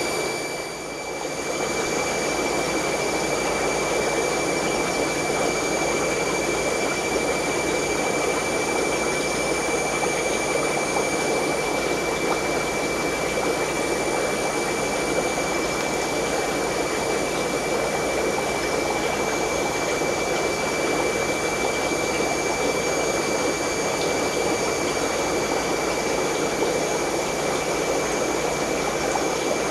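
Steady rush and hum of aquarium filtration and air pumps, with a few faint constant high-pitched whines over it; it dips briefly about a second in.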